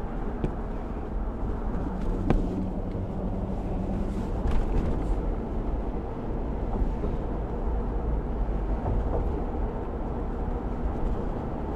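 A car driving: steady low rumble of the engine and tyres on the road, with a single sharp click about two seconds in.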